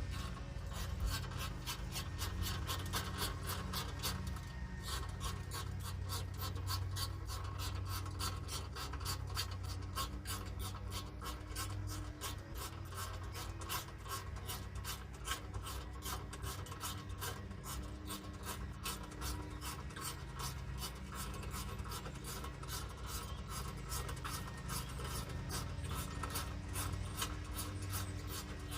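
Hand ratchet wrench clicking steadily, a few rasping clicks a second, as a long 10 mm bolt is backed out, over a low steady hum.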